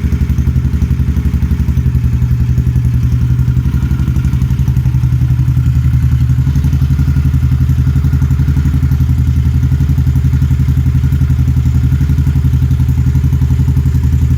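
Royal Enfield-based custom bobber motorcycle engine idling steadily, with an even, rapid exhaust beat.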